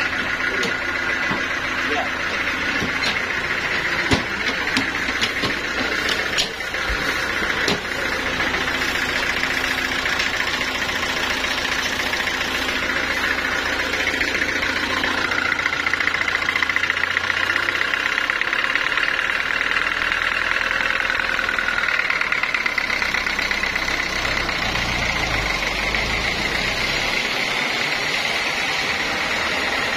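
Portable band sawmill running steadily, its engine and band saw making a continuous mechanical drone. A few sharp knocks come between about four and eight seconds in.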